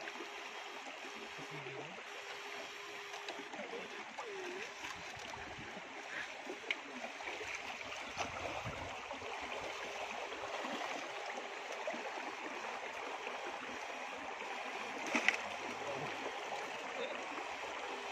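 River water flowing and splashing steadily, with a faint on-and-off hum and a sharp click about fifteen seconds in.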